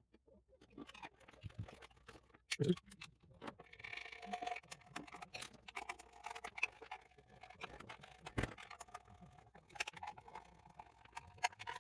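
Handling noise of plastic Laguna pond pump parts as the cover is fitted back on: irregular small clicks, taps and scrapes, with a sharper knock about eight seconds in.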